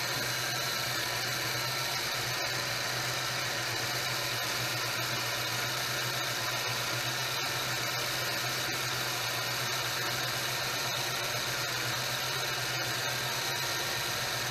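Ford engine idling steadily with the radiator cap off, drawing water down into a cooling system that had run low.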